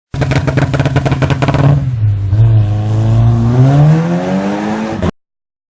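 Alfa Romeo Giulietta 1.8 TBi turbocharged four-cylinder exhaust crackling and popping rapidly on overrun, the sign of a tuned 'crackle map' ECU calibration. The pops stop after under two seconds and the engine note rises steadily as it revs up, then cuts off abruptly.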